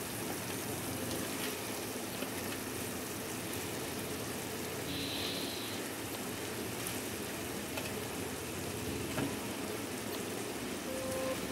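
Thick chilli and soy gravy sizzling steadily in a pan as fried chicken lollipops are turned in it with a wooden spatula, with a brief brighter hiss about five seconds in.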